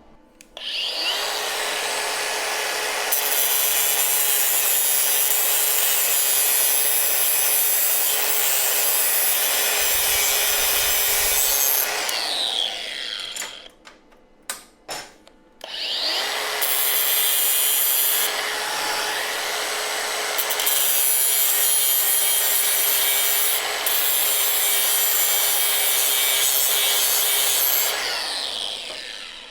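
Angle grinder grinding down the end of a laser-cut steel rib so it fits its slot. It runs twice: each time it spins up with a rising whine, grinds steadily for about eleven seconds, then winds down with a falling whine.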